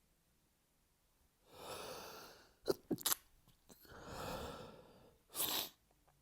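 A person sneezing in an allergy fit: a long drawn-in breath, then a quick cluster of sharp bursts, then another long breath and one sneeze near the end.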